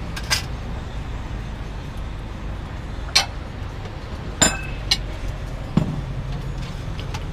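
Scattered clinks and knocks of ceramic bowls and metal ladles on a stainless-steel noodle-stall counter, about five sharp ones spread out, one ringing briefly about four and a half seconds in and a duller knock soon after. Under them runs a steady low background rumble.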